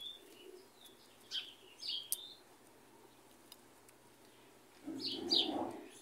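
Small birds chirping in the background: a handful of short, separate high chirps, scattered through the first two seconds and again near the end. One sharp click about two seconds in.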